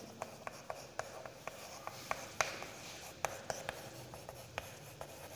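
Chalk writing on a chalkboard: a string of faint, short, irregular taps and scratches as characters are written.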